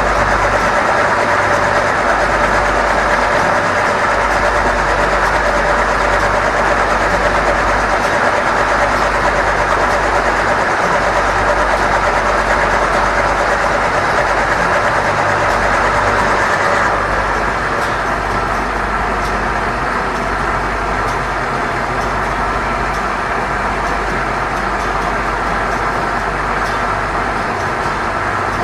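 Power Gear automatic leveling jacks on a motorhome extending under the auto-level cycle, the drive motor running with a steady whine. About two-thirds of the way through the note changes and gets a little quieter. The jacks have just been repaired and are working.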